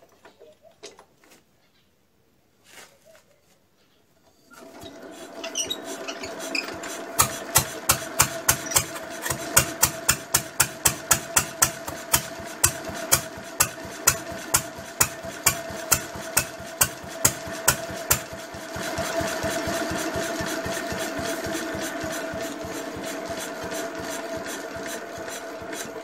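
Lister D single-cylinder stationary engine, fitted with a Farmall Super A tractor exhaust, starting from cold: a few light clicks, then it catches about four seconds in and runs with a fast exhaust beat. Sharp, louder pops come about twice a second until about two thirds of the way through, after which it runs more evenly.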